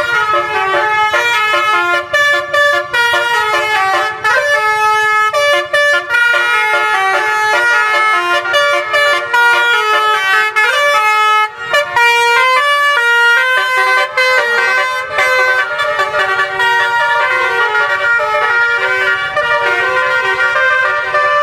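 Telolet bus horn: a set of multi-tone air horns playing a running melody of short notes that step up and down in pitch, several sounding together, with only brief breaks.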